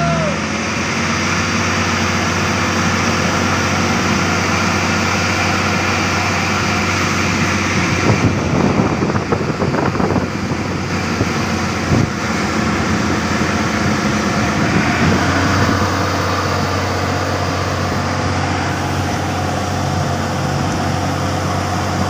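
Diesel engine of a Titan 223 asphalt paver running steadily. Around eight seconds in there is a few seconds of clattering, and about twelve seconds in a single sharp knock.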